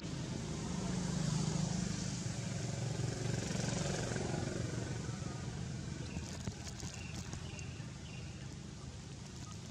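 A steady engine drone from a motor vehicle, swelling over the first few seconds and then slowly fading, as if passing by.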